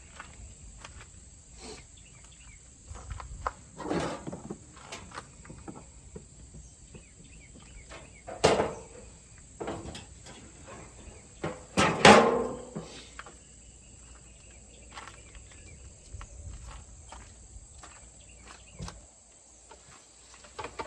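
Scattered clicks and clunks of metal car parts being handled and set down, with three louder knocks about four, eight and twelve seconds in, over a steady high chirring of crickets.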